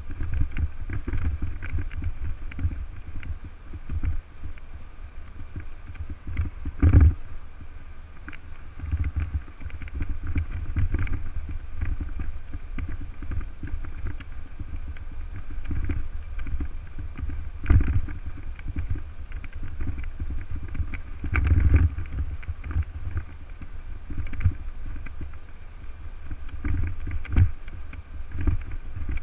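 Wind buffeting the microphone of a bicycle-mounted action camera as the bike rides over rough, cracked asphalt, making a continuous low rumble. A few sharp knocks come as the bike jolts over bumps, the loudest about seven seconds in and twice more later on.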